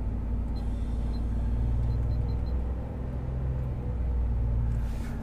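Ford F-150's 5.0-litre V8 running steadily at a raised idle around 2,000 rpm, heard from inside the cab, working freshly added oil treatment through the warm engine. The rumble swells slightly twice as the revs are held.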